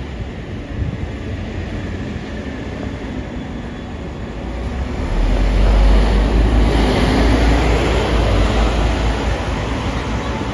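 Street traffic noise with a double-decker bus passing close by. From about five seconds in a deep engine rumble swells for about four seconds, then eases.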